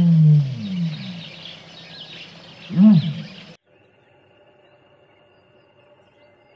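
Two low animal calls, each rising then falling in pitch: a long one at the start and a short one about three seconds in, with small birds chirping behind them. The sound cuts off abruptly about three and a half seconds in, leaving a faint steady hum.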